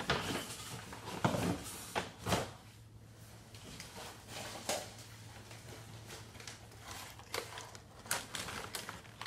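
Bags and packaging being handled and rummaged through: rustling with scattered knocks and thumps.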